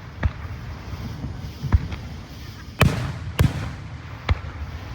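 Fireworks going off: about five sharp bangs at uneven intervals, each trailing off in a short echo. The two loudest come close together, about three seconds in.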